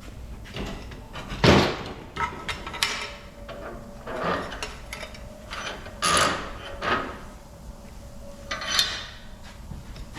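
Irregular knocks, clanks and short scrapes of metal tools and parts being handled, with louder knocks about a second and a half in, around six seconds and near nine seconds.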